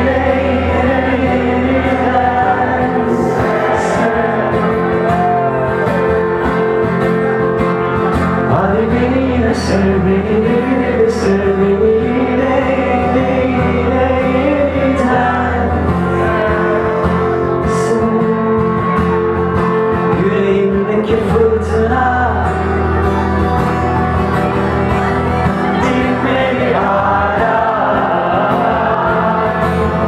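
Male voice singing a slow Turkish pop ballad over steadily strummed acoustic guitar, a live unplugged duo performance.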